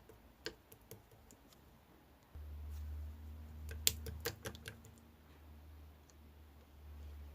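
Slime being pressed and squished, making scattered sharp clicking pops, with a quick run of louder clicks about four seconds in. A low hum starts suddenly a little over two seconds in.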